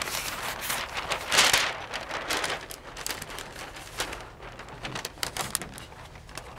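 Large flip-chart paper sheets rustling and crinkling as they are lifted and flipped over the easel pad. There are several louder swishes in the first two and a half seconds, then lighter crackles.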